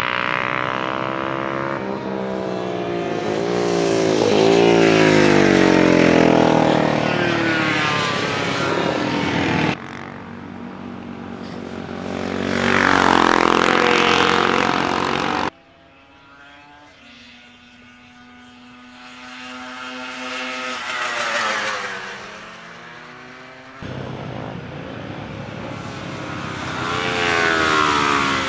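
Classic racing motorcycles passing at speed, their engine notes rising and falling through gear changes and the pitch drop as each bike goes by. Several separate passes are joined by sudden cuts, the third one quieter as a bike approaches from further away.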